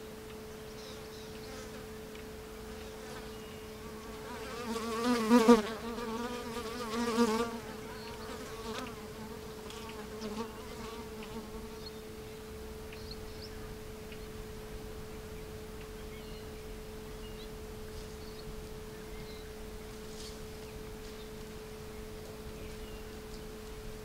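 A flying insect buzzing, its pitch wavering as it comes close, loudest about five seconds in and again about seven seconds in, over a steady low hum.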